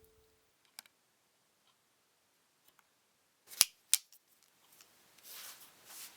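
Two sharp clicks about a third of a second apart, followed near the end by soft rustling.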